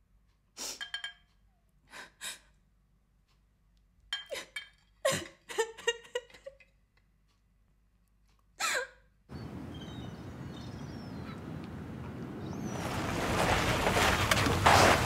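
A woman crying in short gasping sobs and sniffs, with pauses between them. About nine seconds in this gives way to steady outdoor noise, and a car engine approaches, growing louder near the end.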